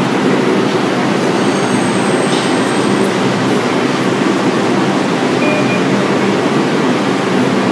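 Steady, loud noise of a New York City subway train in a station, an even rumble with no clear squeal or clatter.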